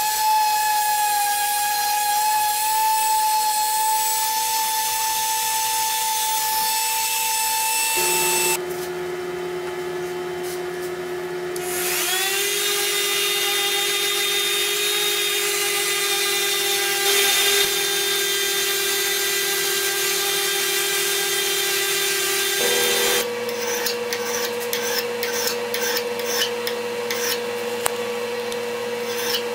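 Random orbital sander spinning up with a rising whine and running steadily on a steel axe head. About twelve seconds in it spins up again and runs at a lower pitch. For the last several seconds its sound gives way to rapid, irregular scraping strokes.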